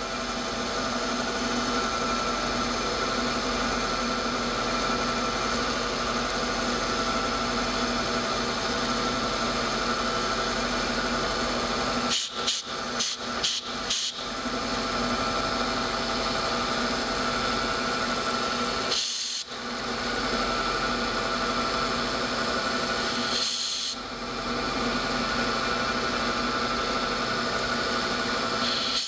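Bridgeport milling machine running an end mill through a slot in metal bar stock: a steady spindle hum over the hiss of the cut. A quick run of short breaks and clicks comes about twelve seconds in, with two brief dips later.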